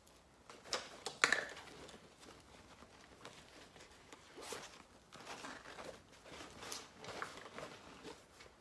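Faint rustling and handling noise of objects being rummaged through in a reusable tote bag, with scattered sharp clicks and knocks, the loudest just over a second in.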